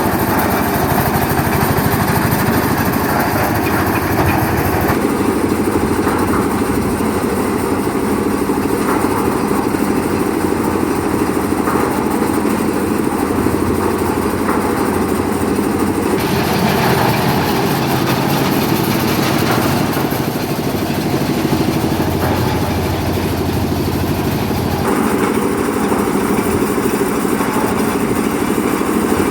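Air-cooled diesel engine of a concrete mixer machine running steadily. Its sound changes abruptly three times, about 5, 16 and 25 seconds in.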